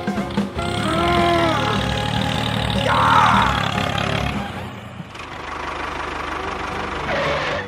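A motor or engine running with a steady hum that turns into a faster, buzzier pulsing about five seconds in, with a loud sweeping burst about three seconds in.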